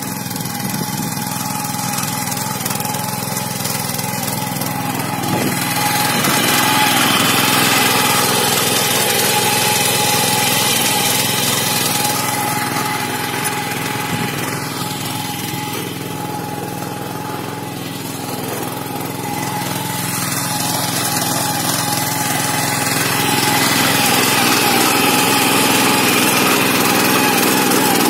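Honda GX200 single-cylinder four-stroke petrol engine on a Shrachi 100H power weeder running steadily as the machine tills a furrow, getting louder and softer a few times.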